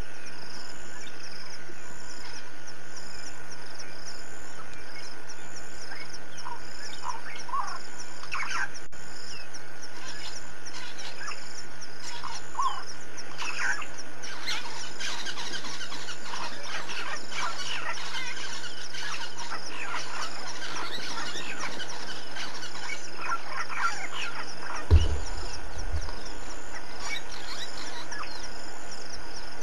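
Many short, high chirping calls, scattered at first and then coming thick and fast, over a regularly pulsing high insect call and a steady low hum. A single thump comes near the end.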